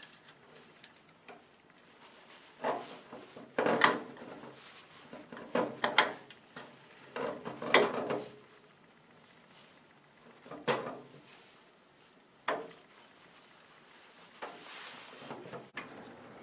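Irregular clunks and clicks of metal parts being handled and fitted by hand on a Ford Model A engine as the distributor goes in, with some knocks coming in quick pairs.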